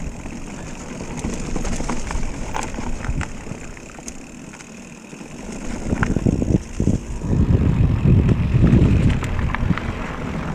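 Mountain bike riding over a dirt trail: wind buffeting the microphone over the rumble of the tyres, with scattered clicks and rattles from the bike. The wind and rumble grow louder past the middle, as if picking up speed.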